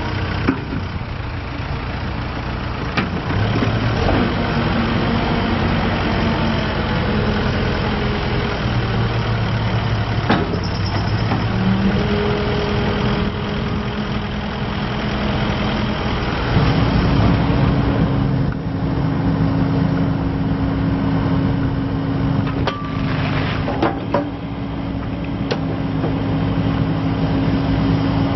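Volvo BL60B backhoe loader's diesel engine running, its speed stepping up and down several times and rising noticeably partway through, with a few short knocks.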